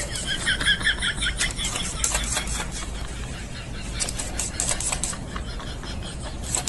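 Irregular clicks and taps of a cat's paws striking a laptop's keys and screen. A brief wavering high chirp sounds in the first second or so.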